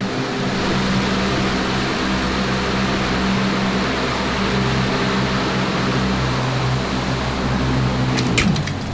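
Large metal floor fan switching on suddenly at full speed and running loudly, with a steady rush of air over a low hum. Near the end come a couple of sharp clicks, then the sound starts to fall away.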